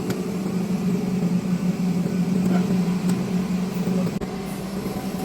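Steady low mechanical hum of a running machine, easing off slightly about four seconds in, with a few faint clicks.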